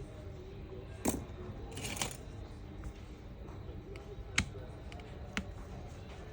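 A few small, sharp clicks and taps of small metal tools and parts being handled on a phone under repair: one about a second in, a quick cluster around two seconds, and single ones near four and a half and five and a half seconds.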